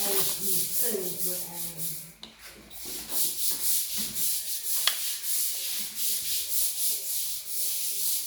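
Rapid, repeated rubbing or scraping strokes, several a second, mostly hissy and high-pitched, with a short pause about two seconds in.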